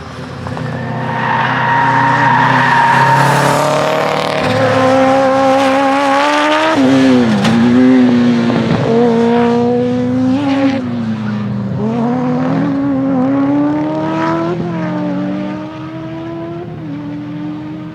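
Honda CBR1100XX inline-four motorcycle engine in a Fiat 126-based prototype, driven hard. Its pitch climbs repeatedly and drops sharply at each gear change or lift off the throttle.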